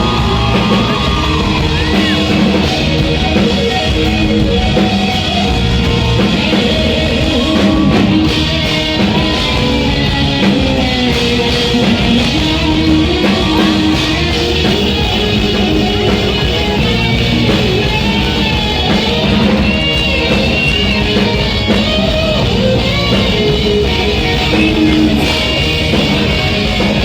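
Live pop-rock band music: singing over electric guitars and drums.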